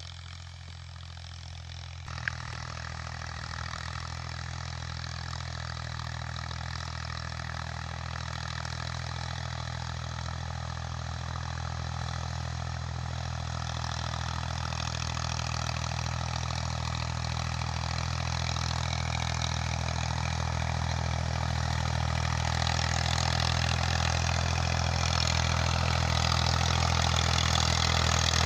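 Massey Ferguson 240 tractor's three-cylinder diesel engine running steadily under load while pulling an 18-disc harrow through the soil, growing louder as the tractor draws nearer. One sharp click about two seconds in.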